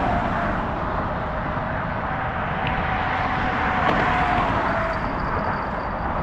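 Steady road traffic passing on the bridge roadway, with a faint tyre whine that swells and fades as cars go by, and low wind rumble on the microphone.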